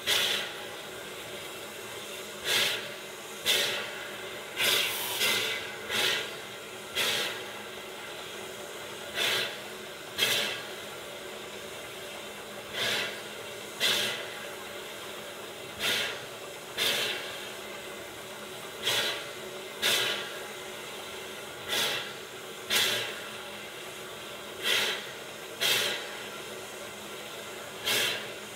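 Short, sharp chuffs of steam exhaust, about twenty of them at uneven spacing, often in pairs a second apart, over a steady hiss of escaping steam from a steam wrecking crane and a standing steam locomotive.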